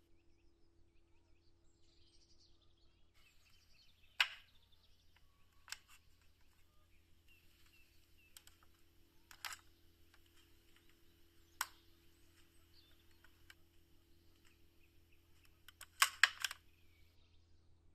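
Sharp, scattered taps and clicks of small craft work: single ones every few seconds, then a quick cluster of three or four near the end, over a faint steady hum.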